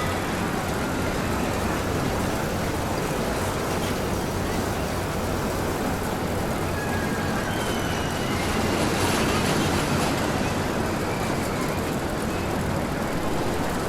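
Amusement park ambience: a steady wash of background noise with a constant low hum, a few faint high-pitched tones and some voices mixed in.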